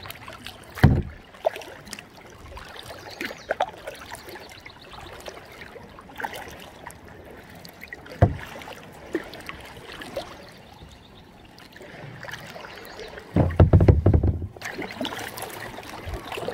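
Kayak paddling on calm water: a soft wash of paddle dips and drips, broken by a few sharp knocks. About 13 seconds in there is a loud low rumble lasting about a second.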